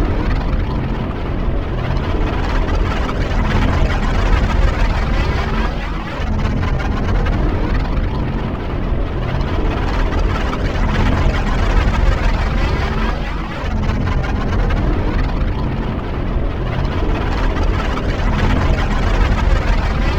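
Exterior engine sound effect of Kylo Ren's Upsilon-class command shuttle from Star Wars: a steady, deep engine drone with a slowly swirling, sweeping texture.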